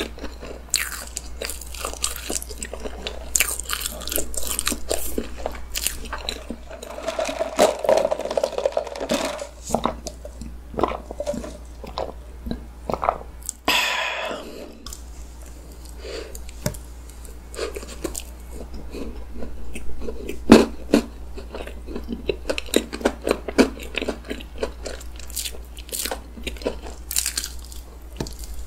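Close-up mouth sounds of chewing and biting chocolate cake with whipped cream, with many small wet clicks and smacks. About halfway through comes a sip of iced coffee through a straw.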